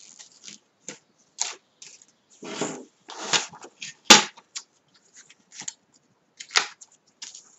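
Paper and card rustling as craft materials and a plastic paper trimmer are handled on a cutting mat, with a sharp knock about four seconds in and a lighter one near the end.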